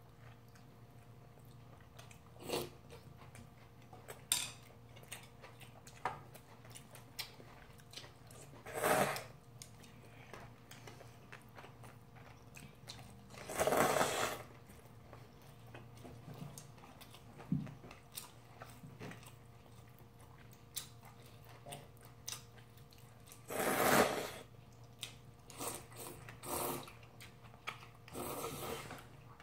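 People eating instant ramyeon: noodles slurped in four bursts of about a second each, between light clicks of wooden chopsticks on bowls and soft chewing.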